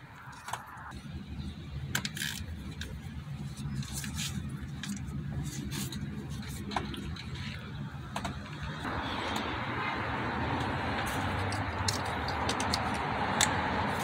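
Scattered light clicks and clatter of plastic ignition coils and their connectors being handled and pressed into place over a low rumble, with a steady hiss coming in about nine seconds in.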